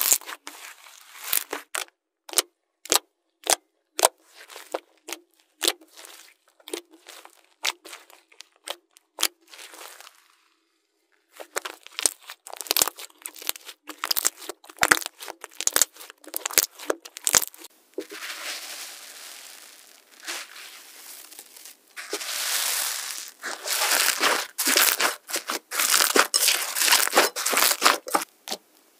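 Slime being handled, squished and poked. First comes a run of sharp, separate pops and clicks. Then, after a brief gap about ten seconds in, come more pops and later denser crackling and squelching.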